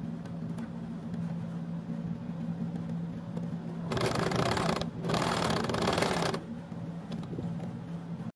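Domestic electric sewing machine stitching through layers of cotton fabric in two short runs, about a second and then about a second and a half, with a brief stop between, closing the last seam of a fabric pot holder.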